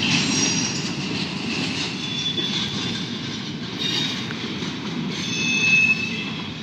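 A freight train of empty intermodal well cars rolling past with a steady rumble of wheels on rail. Several brief, high-pitched wheel squeals come about two, four and five and a half seconds in.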